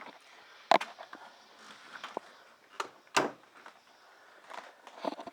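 Two sharp knocks about two and a half seconds apart, with scattered lighter clicks and rustling in between, in a small room.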